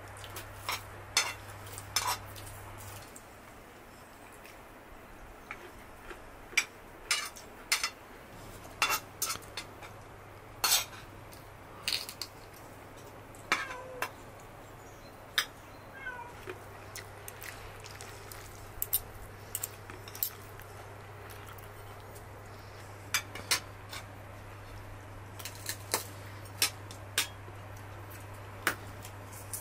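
Forks and spoons clinking and scraping on china plates as people eat, in sharp, irregular clinks scattered throughout.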